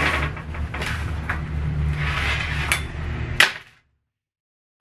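A leather pocket piece being handled and slid over apron fabric on a wooden worktable: steady rustling with a few sharp knocks, the loudest near the end, then the sound cuts off.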